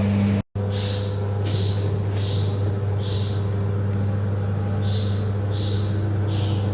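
Breadcrumb-flour drying machine running with a steady electric hum, with a short high chirp repeating about every 0.7 seconds. The sound cuts out for a moment about half a second in.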